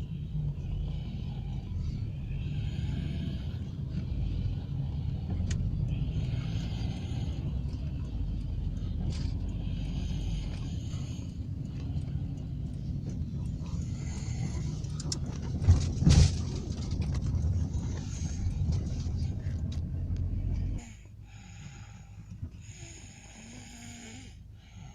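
A man snoring in the seat of a car, one rasping breath every three to four seconds, over the steady rumble of the car's engine. There is a brief thump about 16 seconds in. The rumble cuts off suddenly about 21 seconds in, leaving the snores clearer.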